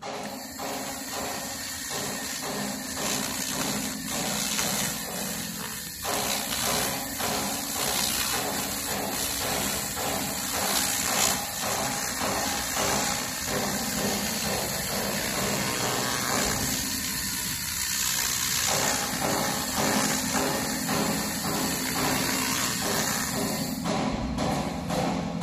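1500 W handheld fiber laser cleaning rust off a steel tube frame: a steady crackling hiss as the beam burns the rust away. The highest part of the hiss stops about a second before the end.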